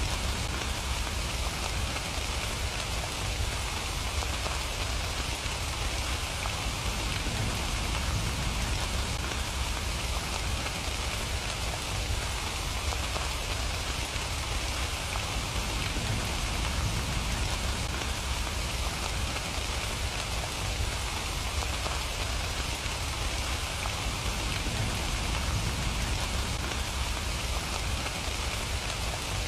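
Steady, even rainfall with no let-up, a hiss of drops over a low rumble underneath.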